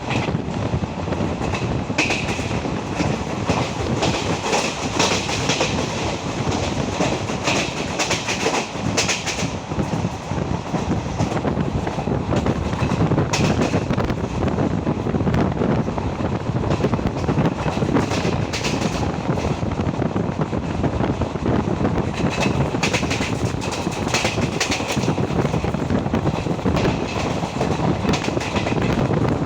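Indian Railways ICF passenger coach running along the track, heard from inside: a steady rumble with clickety-clack from the wheels over rail joints, coming in spells of quick clacks every few seconds.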